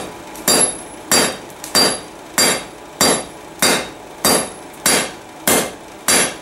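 Hand hammer striking the red-hot end of a 3/8-inch rebar on an anvil in a steady rhythm, about eleven blows spaced a little over half a second apart, each with a short, high metallic ring. The smith is drawing a taper on the bar's end.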